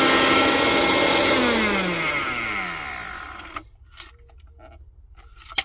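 Blender motor running on a load of dry ingredients, then winding down in falling pitch and stopping about three and a half seconds in. A sharp click follows near the end.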